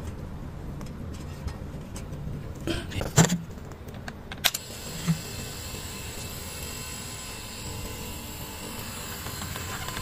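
A weak, overheating refrigerator compressor, rewired as an air pump, running with a steady low hum. A few clicks come around three and four and a half seconds in as the hose chuck is clamped onto the bicycle tyre valve; after that a faint steady hiss joins the hum as air pumps into the tyre.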